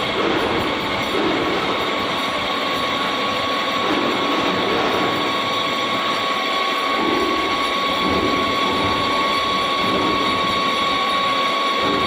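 CNC lathe running while turning a pipe: a steady mechanical noise with a constant high-pitched whine.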